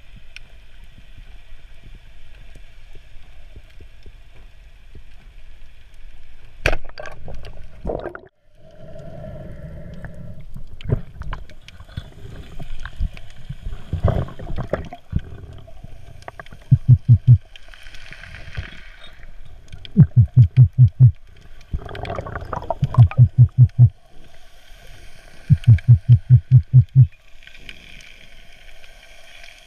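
Underwater sound heard through a camera's waterproof housing: a steady watery hiss with scattered clicks and knocks. In the second half come several short runs of loud, rapid low thumps, roughly every three seconds.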